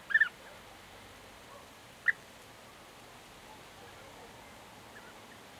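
European bee-eater calling: a quick cluster of short, rolling notes at the start, then a single note about two seconds in and a faint one near the end.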